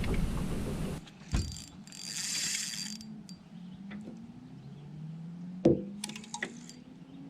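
Fishing reel being cranked, its gears clicking and ratcheting, with scattered sharp clicks and a brief hiss about two seconds in.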